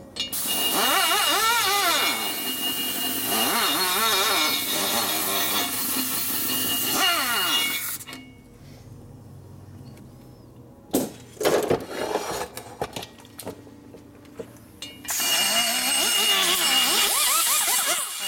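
A hand-held rotary grinder cutting a cylinder head's port, its pitch dipping and rising as the cutter bites and frees up. It runs in two bouts with a quieter gap of several seconds between them, broken by a few clicks.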